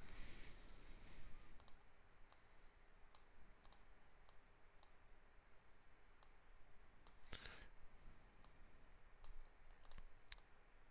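Faint, scattered clicks of a computer mouse, single clicks a second or so apart, over quiet room tone, with a short rush of noise at the start and another about seven seconds in.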